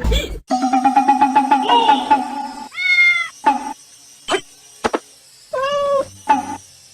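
Kitten meowing: two short, arching meows and a shorter third one, with a few sharp clicks between them. A steady buzzing tone comes before the meows, for about two seconds.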